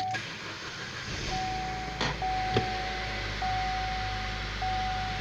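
A 2012 Chevy Sonic's 1.4-litre turbo four-cylinder starts and settles into an idle about a second in, with the car's warning chime sounding in long, even beeps over it. The engine has a vacuum leak through its valve cover that makes it run rough.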